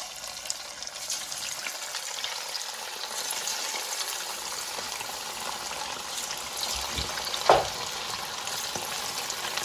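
Marinated, cornflour-coated chicken pieces frying in hot oil: a steady, dense sizzle full of fine crackles. There is a single sharp knock about three-quarters of the way through.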